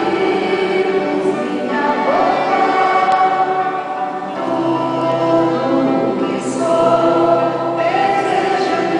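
A choir of men and women singing a hymn together, the voices holding long notes and moving to new ones every second or two.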